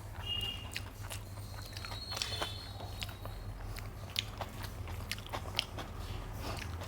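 Close-up mouth sounds of a person eating rice and dal: chewing, with irregular wet smacks and clicks, over a steady low hum.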